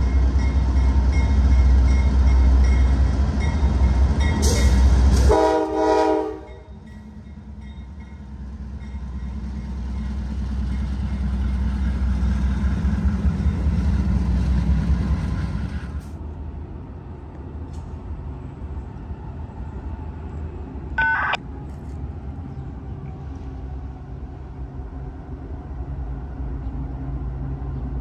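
Diesel freight train locomotives rumbling, with a short multi-tone horn blast about five seconds in. The rumble cuts off suddenly and builds again, drops off abruptly near the middle, and a brief high-pitched sound follows later.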